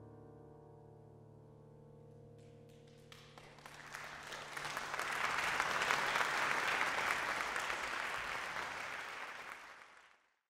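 The last chord of a piano trio rings out and dies away over the first few seconds; a few claps start and swell into audience applause, which fades out near the end.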